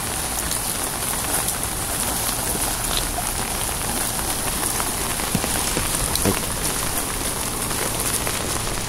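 Rain falling steadily, an even, unbroken hiss with a few faint drop ticks.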